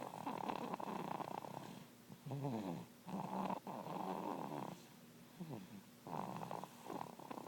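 Someone snoring in slow, rattling breaths, each snore lasting a second or more with quieter pauses between.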